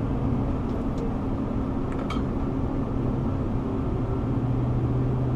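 Car driving at speed on a highway ramp: steady low road and engine rumble, with a low engine hum growing stronger about four and a half seconds in.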